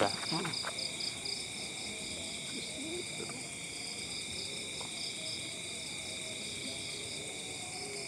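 Night insect chorus of crickets trilling steadily in several high-pitched layers, one of them pulsing rapidly.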